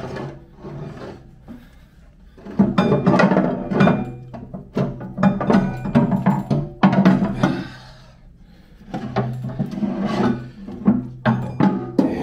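Irregular metal knocks and clunks as a Boston worm-gear reducer is worked loose and lifted out of the steel frame of a Peter Pugger pugmill, over music playing in the background.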